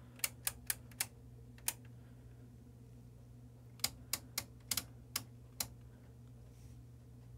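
Rotary switch knobs on a Tektronix 465 oscilloscope's front panel clicking through their detents as they are turned. There are about six sharp clicks in the first two seconds, then another seven or so between about four and five and a half seconds in, over a faint steady low hum.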